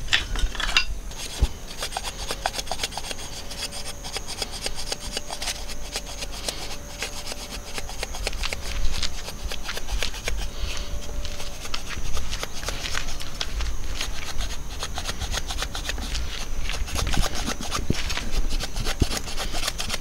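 Hatchet blade shaving thin curls off a softwood kindling stick: repeated short scraping strokes of steel across wood.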